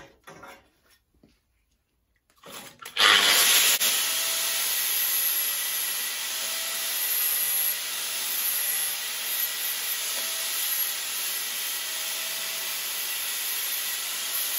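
A power grinder starts about two and a half seconds in, after a short near-silent spell, and then runs steadily with a faint whine. It is grinding the notched end of a steel chassis tube to thin and feather it into a closer fit.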